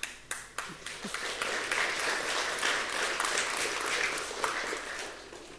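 Audience applauding: a few separate claps that swell into steady applause and die away near the end.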